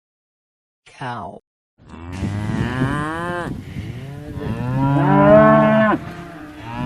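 Cow mooing in long drawn-out calls, loudest about five seconds in.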